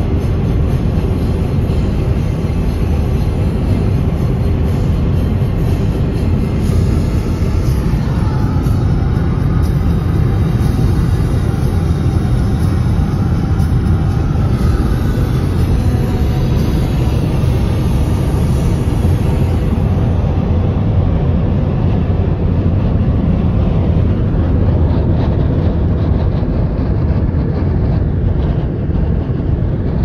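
High wind rushing and buffeting around a car moving at highway speed, heard from inside the car together with road noise: a loud, steady low rumble.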